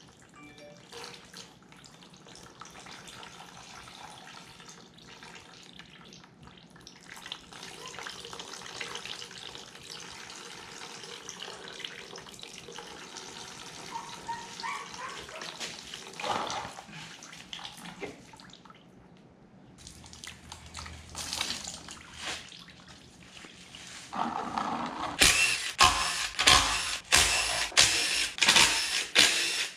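Water and oil draining in a steady stream from the drain plug hole of a blown engine's oil pan. Near the end, a loud run of sharp mechanical clacks comes in, about two a second.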